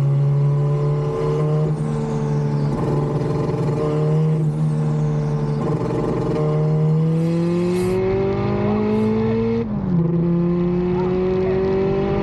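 A turbocharged Honda K24 four-cylinder in a Subaru Impreza, heard from inside the cabin, pulling in gear with its pitch climbing slowly. About ten seconds in the revs drop at a gear change and start climbing again.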